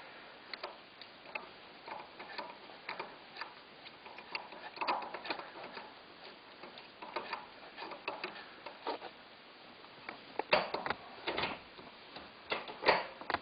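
Short shifter on a Nissan R33 manual gearbox being worked through the gears by hand, giving irregular clicks and clunks as the lever moves between the gates. The clicks are faint at first and louder from about ten seconds in.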